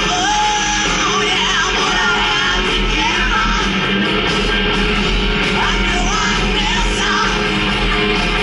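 Rock music with singing, playing steadily throughout.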